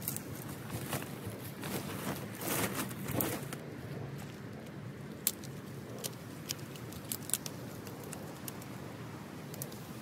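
Plants being pulled and handled in a garden border: rustling and tearing of foliage, with scattered sharp clicks and a louder rustle about two and a half seconds in.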